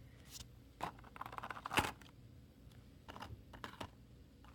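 Handling noises: scattered light clicks and short rustles of small objects being moved about by hand, with one sharper click near the middle.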